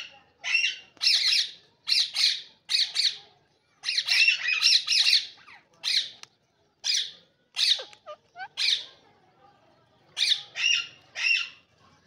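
Rose-ringed (Indian ringneck) parakeets squawking: short, harsh calls in quick clusters, with a few softer gliding notes near the middle and a brief lull before a last burst of three calls.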